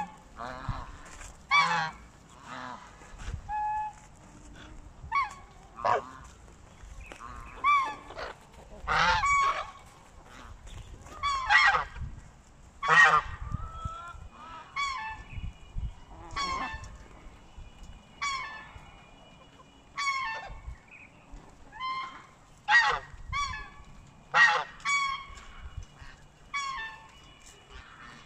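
Domestic geese honking: a run of loud, short, nasal calls from several birds, coming irregularly one after another and sometimes overlapping.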